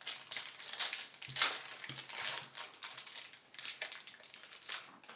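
Foil Yu-Gi-Oh! booster pack wrapper crinkling and tearing open by hand, a run of irregular crackles.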